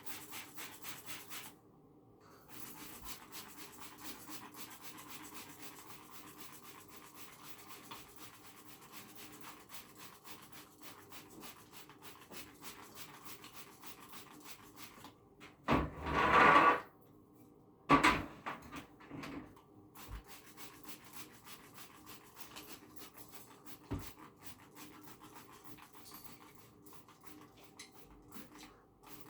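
Rubbing and scrubbing on bird cage parts being cleaned, a long run of dense, quick scraping strokes. About halfway through come two short, much louder bursts of hissing noise.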